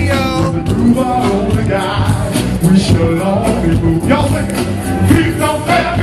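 Live funk band playing, with singing over a steady bass and drum beat.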